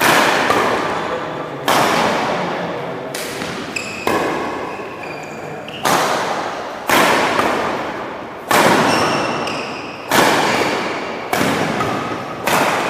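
Badminton rackets striking a shuttlecock in a rally, about ten sharp hits roughly every second and a half, each followed by a long echo in a large hall.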